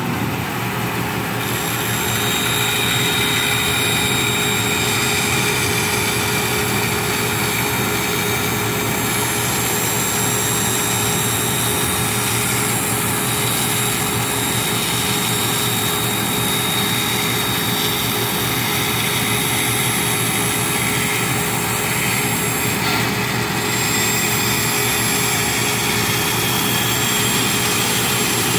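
Large floor-standing band saw running and cutting a thick wooden board along a curve: a steady whir of blade and motor with a constant hum, a little louder after the first couple of seconds.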